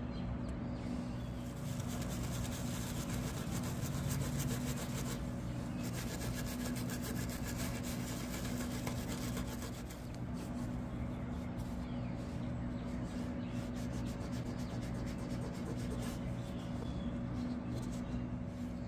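A Susan B. Anthony dollar coin being rubbed by hand with Flitz metal polish, in quick, continuous strokes that get harder for a few seconds around the middle. A steady low hum runs underneath.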